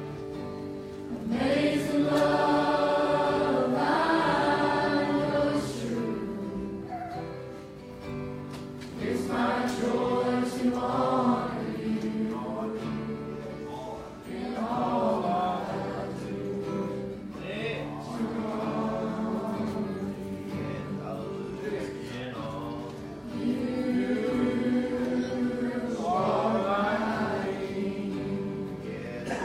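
Gospel song sung by a group of voices in church, over steady held instrumental chords. The singing comes in phrases of a few seconds with short breaks between them.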